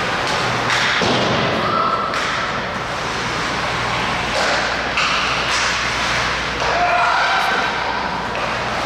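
Ice hockey game in play in an indoor rink: steady skate-and-arena noise with a few sharp knocks of sticks, puck or bodies against the ice and boards, and voices now and then.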